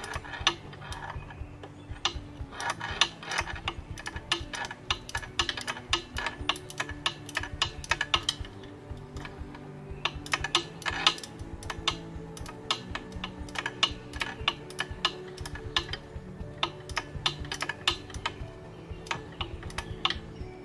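A 3/8-inch drive ratchet clicking in short runs as it is swung back and forth, loosening the connecting rod lock nuts of a reciprocating gas compressor in a cramped crankcase opening, with background music.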